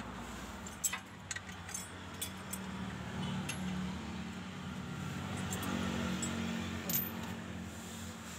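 Light, irregular metallic clicks and clinks as clutch pressure-plate bolts are threaded in by hand against the flywheel, over a steady low hum.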